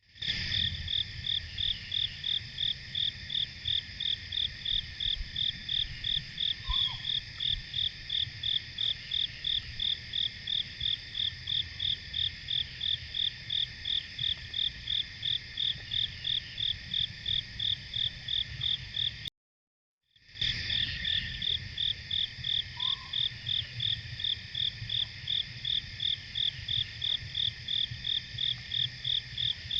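Insect chorus of crickets and other singing insects: a steady high-pitched trill, with one insect chirping in an even rhythm of about two and a half chirps a second. It drops out completely for under a second about two-thirds through, then starts again.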